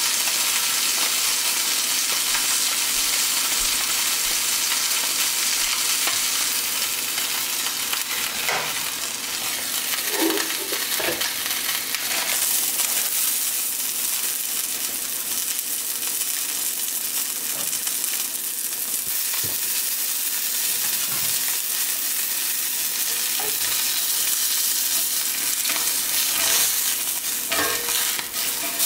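Red snapper fillet sizzling steadily as it sears in oil in a cast-iron skillet, with a few light knocks from a spatula in the pan.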